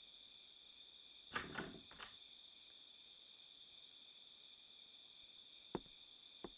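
Faint crickets chirping, a steady high shimmering trill. A few soft knocks come about a second and a half in, and two sharp ticks near the end.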